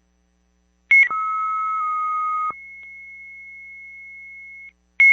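Fire dispatch radio alert tone: a click, then a steady beep about a second and a half long that steps slightly lower partway through, with a fainter higher whistle carrying on for about two more seconds before the channel keys up again.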